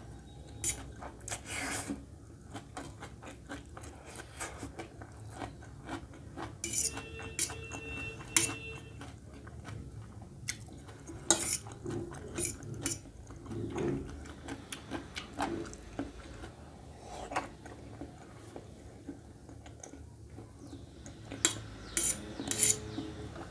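Metal fork clinking and scraping against a stainless steel plate in irregular sharp strikes, with chewing of noodles between them.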